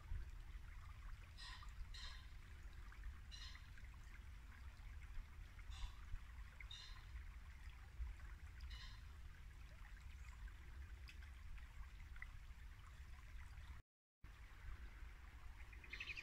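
Shallow woodland brook babbling steadily. Faint short, sharp calls repeat every second or two over it through the first half.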